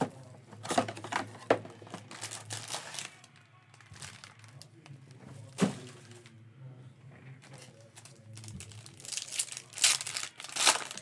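Plastic wrap crinkling as a trading-card box is unwrapped and opened, with a single sharp knock about halfway through. Near the end comes loud crinkling and tearing as a foil trading-card pack is ripped open.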